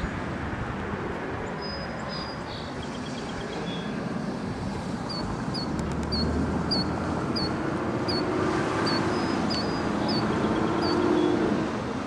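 Steady low outdoor rumble, with a faint run of about ten short, high, upward-flicked bird chirps, roughly two a second, in the middle.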